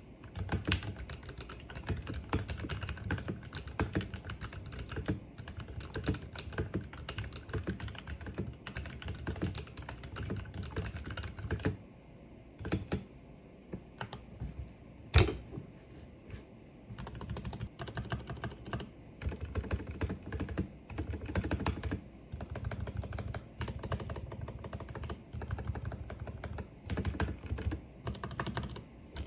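Typing on a Royal Kludge RK84 mechanical keyboard with Cherry MX Red linear switches: a fast, steady stream of key clacks. About twelve seconds in it thins to scattered keystrokes, with one sharp, loud clack, then fast typing picks up again.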